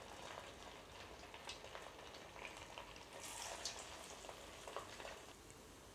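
Rice pakoda pieces deep-frying in hot oil in a steel kadai over medium heat: a faint, steady sizzle with small crackles, stirred with a wire-mesh strainer. The sizzle is a little louder around three seconds in.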